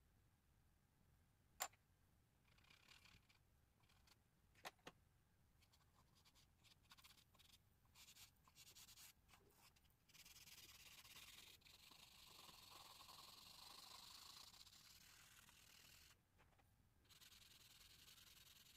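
Faint scratching and rubbing of charcoal on drawing paper as a figure is drawn and shaded. There is a sharp tick about a second and a half in and two more near five seconds. Longer stretches of steady rubbing come in the second half.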